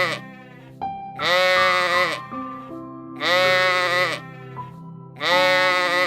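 Repeated long bleats, about one call every two seconds with each call lasting about a second, over steady background music.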